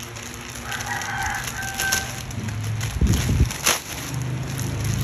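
A rooster crowing once, starting about a second in and lasting about a second, over the crinkle of a thin clear plastic bag being pulled open by hand.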